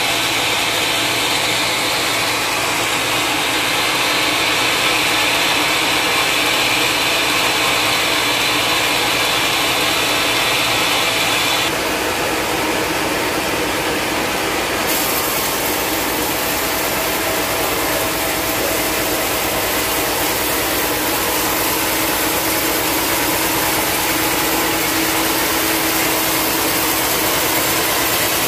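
Band sawmill at work: its large multi-cylinder engine running steadily under the steady din of the mill, the sound changing about twelve seconds in, then the band saw blade cutting lengthwise through a long, dry, hard log.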